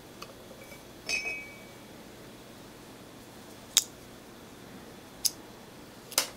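Small metal parts of a diesel injection pump's vane-type lift pump clinking and clicking as they are lifted out of the housing and handled. A short ringing clink comes about a second in, then three sharp clicks over the following seconds.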